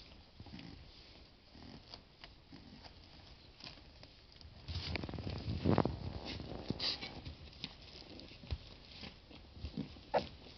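Three-week-old Boston terrier–Labrador mix puppies scuffling on a fleece blanket: soft scratching and patting of paws, a louder scuffle about halfway through, and short squeaks near the end.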